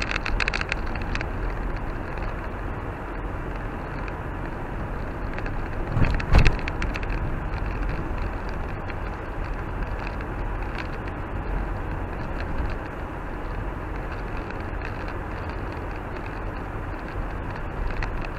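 Car driving on a snow-covered road, heard from inside the cabin: steady engine and tyre noise, with a thump about six seconds in.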